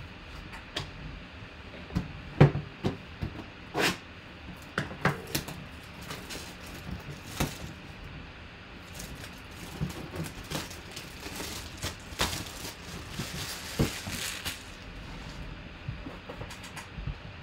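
Clear plastic shrink wrap being torn and peeled off a cardboard hobby box, crinkling with many scattered sharp crackles and a few knocks.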